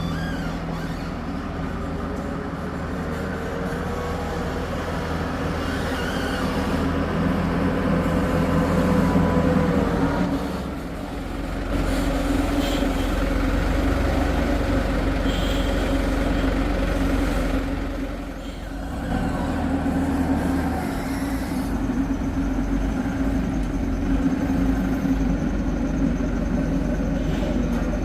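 Heavy construction machine's diesel engine running steadily under working load, swelling and easing a little as it works, with a brief drop about a third of the way in and again about two-thirds in.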